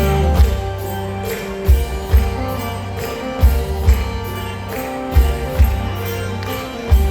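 Mor lam band music with a steady jingling beat, deep drum hits every second or so, and sustained chords underneath.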